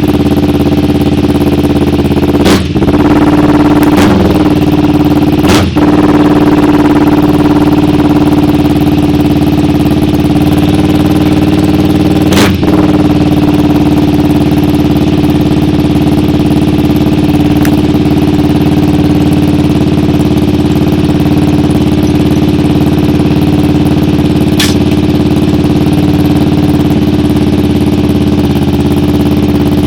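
Kawasaki Ninja 250R parallel-twin engine idling steadily through an Austin Racing full-system aftermarket exhaust, loud and even. There are a few brief dips in the sound in the first half.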